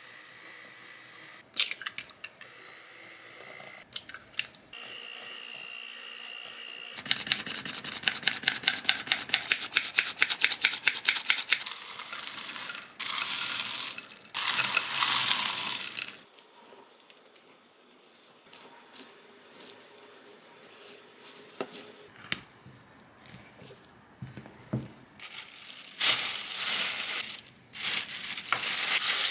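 Cookie dough being worked in a glass mixing bowl: an electric hand mixer runs faintly at first, then come quick even scraping strokes for several seconds, a rattle of chocolate chips and pretzel pieces going into the bowl, and near the end loud crinkling of a plastic bag as the dough is scooped into it.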